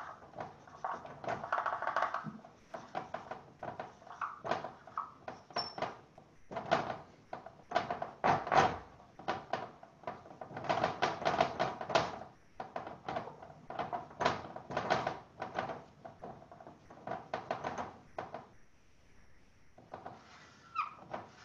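Felt-tip marker scribbling on paper: rapid short scratching strokes in runs, with brief pauses about six seconds in and again near the end.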